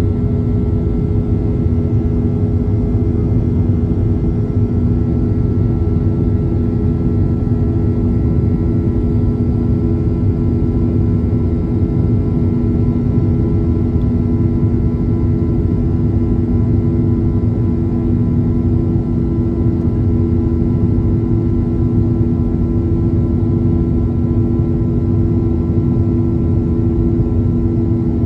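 Boeing 737-800's CFM56-7B turbofan engines running at climb power, heard inside the cabin over the wing: a steady rumble with a constant low hum and a fainter high whine.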